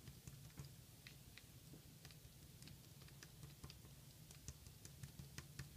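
Faint, irregular soft taps, a few a second: a paint-loaded cotton swab dabbed up and down onto paper to make dots, over a low steady hum.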